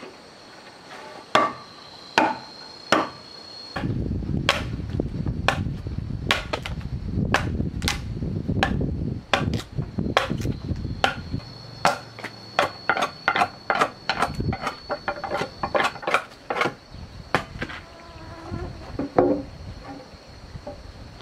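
Irregular hammer blows, dozens of sharp strikes that come two or three a second at their quickest, over a steady high insect drone. A low rumbling noise runs under most of it.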